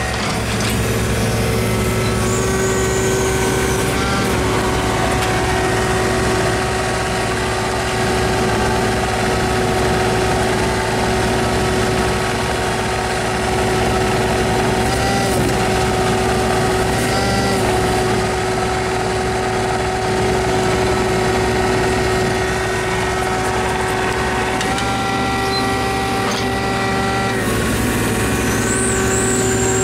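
Kubota U-30 mini excavator running steadily with a whine from its hydraulics as it drives on its rubber tracks. The pitch of the whine shifts briefly a few times as the load changes.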